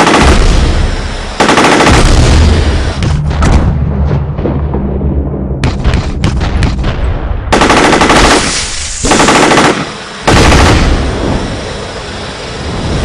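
Several long bursts of automatic machine-gun fire, separated by short pauses. After the second burst a few single shots trail off.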